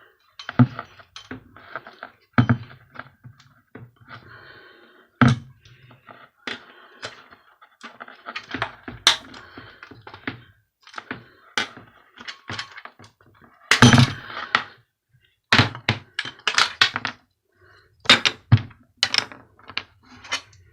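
Irregular knocks, clunks and clicks of metal parts and hand tools as a small electric bar heater is taken apart by hand, with one louder clunk about two-thirds of the way through.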